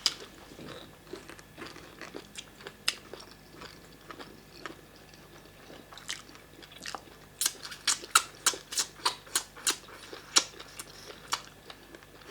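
Close-miked mouth sounds of someone eating yam fufu and vegetable soup with assorted meat: chewing and smacking. In the second half comes a steady run of sharp chewing smacks, about three a second.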